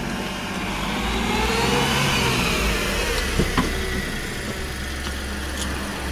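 Dacia Sandero's engine running as the car pulls up and slows to a stop. The sound swells and rises in pitch, then falls. Two sharp clicks come about three and a half seconds in as the driver's door opens, and the engine then idles low.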